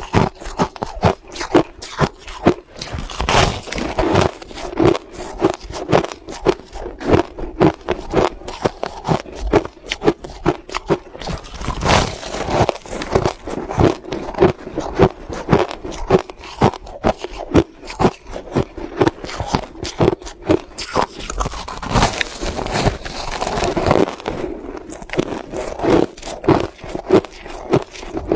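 Crushed ice being bitten and chewed close to the microphone: a continuous run of crisp crunches, several a second.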